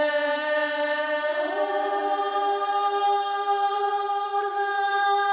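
Soundtrack music: a single long held vocal-like note with rich overtones that slides up in pitch about a second and a half in and then holds steady.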